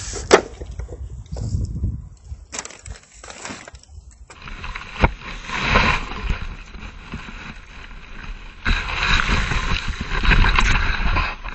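Dry fallen leaves crunching and rustling, heard close up, as a plastic shovel scrapes them off pavement and tips them into a paper yard-waste bag. Sharp knocks just after the start and about five seconds in; the crackling grows loudest near the end.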